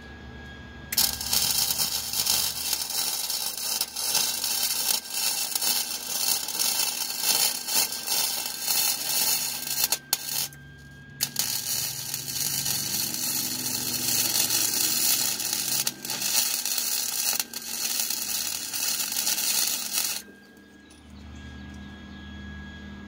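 Wire-feed welding arc crackling steadily as a roll cage tube joint is welded, in two long runs of about nine seconds each with a brief pause around ten seconds in; it stops a few seconds before the end.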